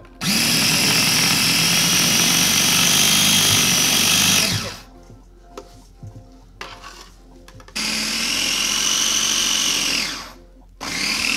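KitchenAid mini food chopper running, full of cabbage, with a steady motor whine. It runs for about four seconds and winds down. After a few seconds of light knocks, it runs again for about two and a half seconds, drops in pitch as it stops, and starts once more near the end.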